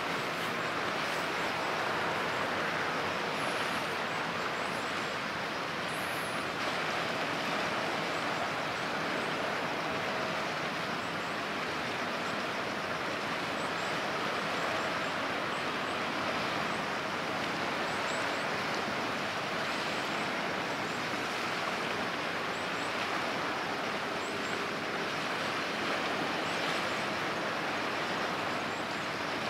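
Steady outdoor background noise: an even rush like distant road traffic, with no single sound standing out.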